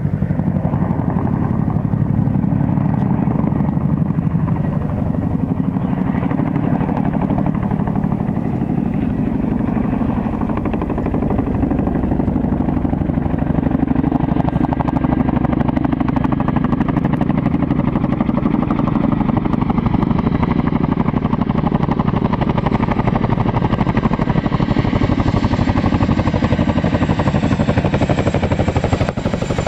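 CH-47 Chinook tandem-rotor helicopter flying in close: a steady, rapid rotor beat over turbine engine noise, getting a little louder partway through as it nears.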